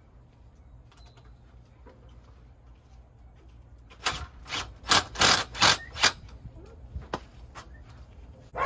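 Hercules cordless drill turning a screw in a wall plaque, run in about six short trigger bursts over two seconds, then two fainter bursts. A sharp knock comes at the very end.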